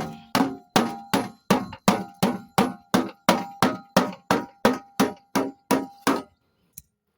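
Rapid, evenly spaced metal clanks, about three a second, each ringing briefly. They stop about six seconds in.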